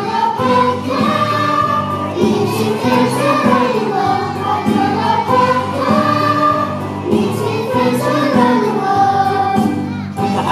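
A group of young children singing a song together, with musical accompaniment.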